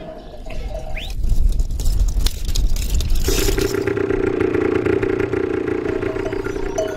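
Motorcycle engine running as it rides along a dirt track: a low rumble for a couple of seconds, then a steady buzzing hum from about three seconds in that stops near the end.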